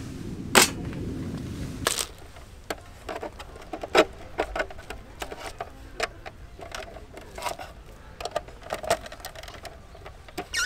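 Irregular light clicks and knocks of small hard objects, a few a second, some with a short dull ring.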